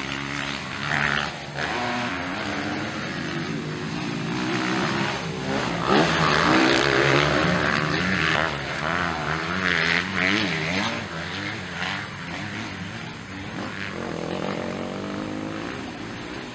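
250 cc MX2 motocross bikes racing on a dirt track, their engines revving up and down as the riders work the throttle and gears, louder about six to eleven seconds in.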